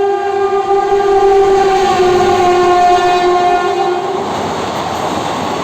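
Indian Railways locomotive horn blowing one long two-tone blast that drops slightly in pitch partway through and stops about four seconds in, followed by the steady rushing noise of the passing train.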